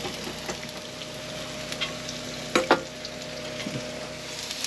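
Vegetable lo mein stir fry sizzling in a pan while it is stirred, with small scraping clicks and two sharp clanks of a utensil against the pan about two and a half seconds in.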